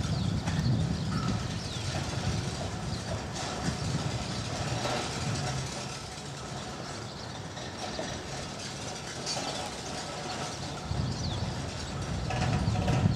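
Uneven low rumble, strongest near the end, with a few faint high chirps now and then.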